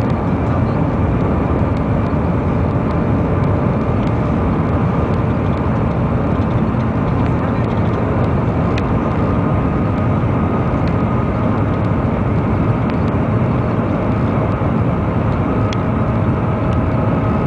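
Cabin noise inside the Shanghai Transrapid maglev train running at speed: a steady, loud rushing roar with a faint steady whine through it.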